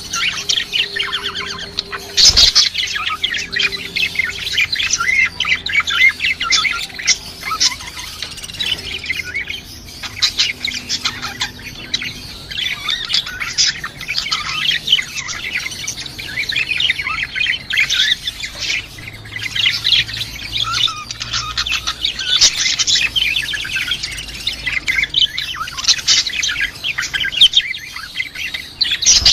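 Lovebirds chirping and chattering continuously in rapid, overlapping high-pitched calls with occasional squawks.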